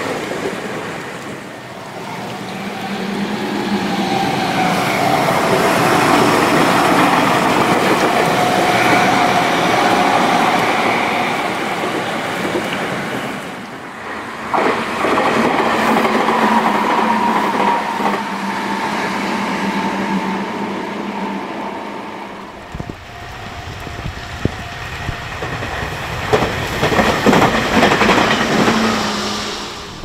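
Meitetsu electric commuter trains running past: wheels rolling on the rails with a steady whine that slowly falls in pitch. About three-quarters of the way through, the sound cuts to wind buffeting the microphone, with a few sharp clacks near the end.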